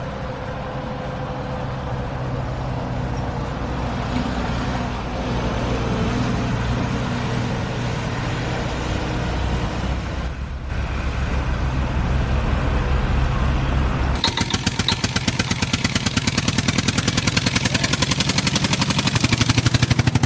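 An engine running steadily and slowly getting louder; about two-thirds of the way through it turns into a fast, even chugging pulse.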